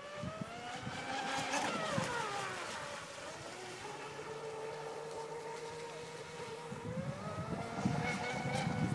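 Aquacraft Rio 51Z RC boat's Leopard 910kV brushless motor on 10S whining at full throttle as the boat planes, with the hiss of its spray. The whine rises, drops sharply about two seconds in, holds steady, then climbs again near the end.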